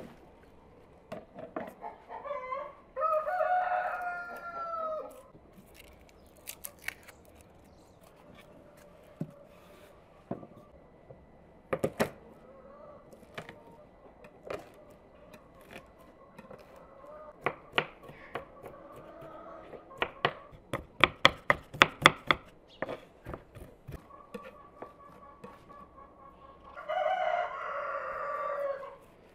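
A rooster crowing twice, once about three seconds in and again near the end, each a long pitched call. In between comes a quick run of sharp knocks and clicks, densest and loudest about two-thirds of the way through.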